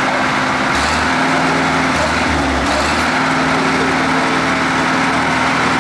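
Zetor tractor's diesel engine running steadily under load as it pulls through deep mud.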